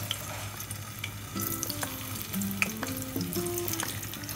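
Cubes of paneer frying in hot oil in a kadai: a steady sizzle with small crackles. A simple background melody comes in about a second and a half in.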